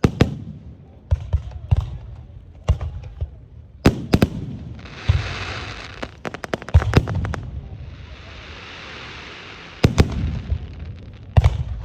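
Fireworks display: aerial shells bursting one after another with sharp bangs and a low rumbling echo, a quick run of cracks about six seconds in, and two stretches of sizzling hiss, around five seconds in and again from about eight to ten seconds.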